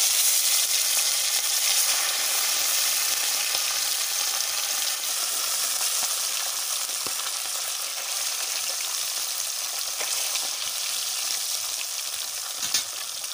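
Rohu fish pieces deep-frying in hot oil in a kadai: a loud, steady sizzle from fish just put into the heated oil, slowly easing as they fry.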